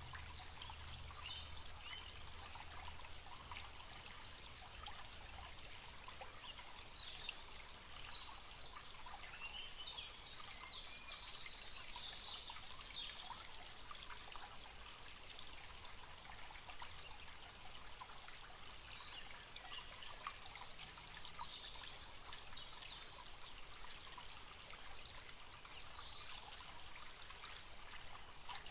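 Small forest stream trickling and babbling steadily, with birds chirping now and then in short high calls.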